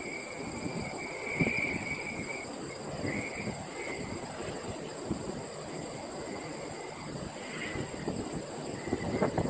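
Gusty wind buffeting the microphone ahead of a thunderstorm gust front, with a steady high-pitched whine and on-off chirping in the background.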